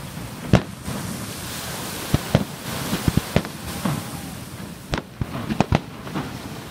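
Aerial fireworks shells bursting in a string of sharp bangs at irregular intervals, some single and some in quick clusters of two or three, over a steady background hiss.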